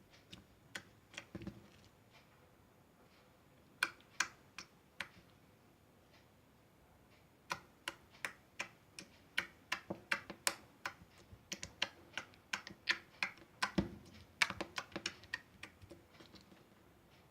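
Slime being squished and pressed, making crisp, irregular clicks and pops. They are sparse at first and come thick and fast from about seven seconds in.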